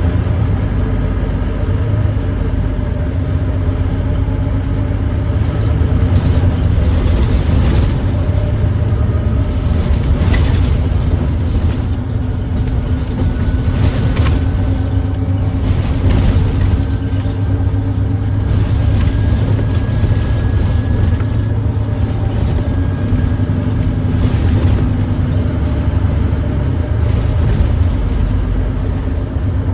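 Volvo D9B 9.3-litre diesel engine of a Volvo B9TL double-decker bus running under way, a loud steady rumble; the bus has an exhaust leak and engine thrash. A faint whine rises slowly a few times, with a few sharp ticks around a third and halfway in.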